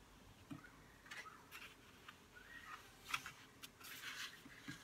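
Faint paper handling: a hardcover sketchbook's stiff watercolour-paper page being unfolded and pressed flat by hand, with scattered soft clicks and taps, the sharpest about three seconds in, and a short rustle about four seconds in.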